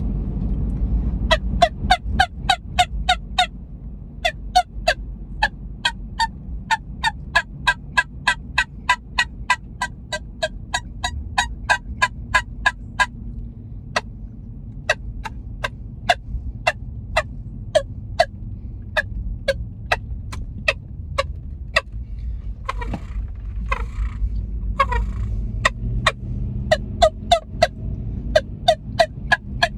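3D-printed turkey tube call blown in quick runs of short, sharp, turkey-like notes, about three to four a second, with brief pauses between runs. Partway through come a few longer, breathier calls.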